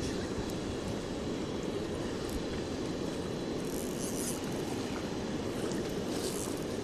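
Steady low roar of river water pouring over a low-head dam. Two short hissing splashes stand out about four and six seconds in, the second from a hooked wiper thrashing at the surface.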